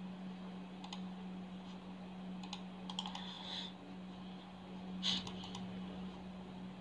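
A few scattered clicks of a computer mouse and keyboard, irregularly spaced, the loudest about five seconds in, over a steady low hum.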